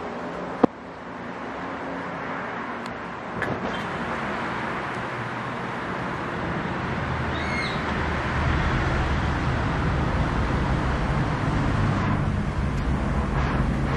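Low steady engine rumble over outdoor traffic noise, growing louder about halfway through, with a sharp click just after the start.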